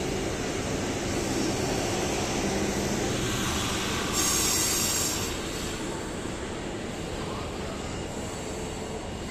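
Triveni Express passenger train rolling steadily past, its coach wheels running over the rails. About four seconds in, the luggage, brake and generator car goes by with its on-board generator running. This adds a high whir and is briefly the loudest part.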